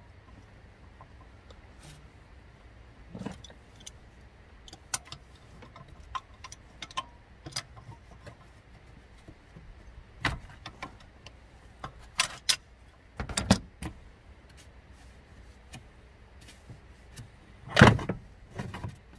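Hand tools clicking and clanking on metal as a ratchet and an adjustable wrench work a pulley holder and the engine fan nut to break the fan loose. Scattered single clicks, with a few louder clusters of clanks, the loudest near the end.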